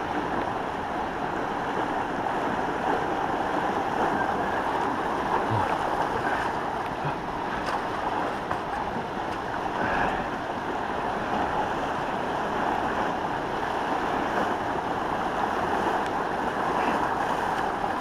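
Fast-flowing muddy floodwater rushing steadily through a normally dry desert creek, swollen by heavy rain.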